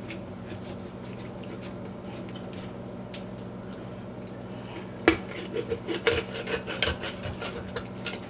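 Large kitchen knife chopping through a raw chicken's backbone on a wooden cutting board. There is only a steady low hum at first; about five seconds in comes an irregular run of sharp knocks as the blade strikes bone and board.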